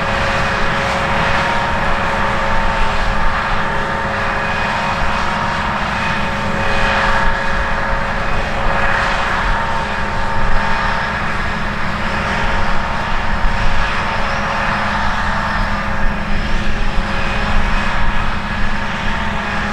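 Heavy diesel harvest machinery running steadily under load, a constant engine drone with a fixed whine and a rushing noise that swells slightly now and then.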